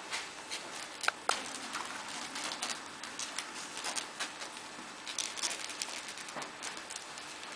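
Newborn Bichon Frise puppies nursing from their mother: a run of quick clicks and smacks from suckling, with two brief high squeaks about a second in.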